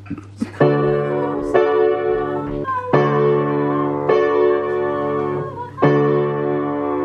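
Upright piano played slowly: five chords struck about a second apart, each left to ring and fade before the next, over a low steady hum.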